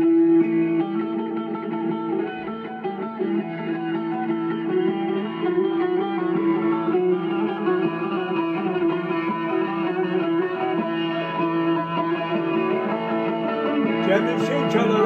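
Instrumental passage of a Turkish folk türkü: a plucked bağlama (saz) playing a busy melody over a held low drone note.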